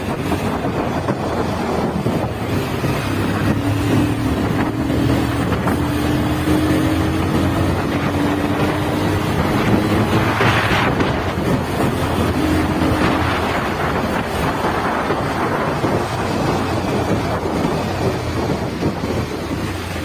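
Bajaj Pulsar 220F's single-cylinder engine running under way, its note climbing slowly for several seconds as the bike pulls through a gear, mixed with heavy wind noise on the microphone. A brief whoosh comes about halfway through.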